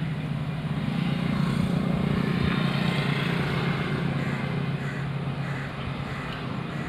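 WDP4D diesel locomotive's EMD two-stroke V16 engine drone as the train approaches: a low, steady hum with overtones, swelling about a second in and easing off near the end.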